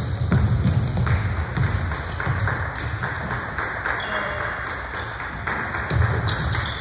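Basketball game in a gym: the ball bouncing on the court and sneakers squeaking in short high chirps, with voices in the background.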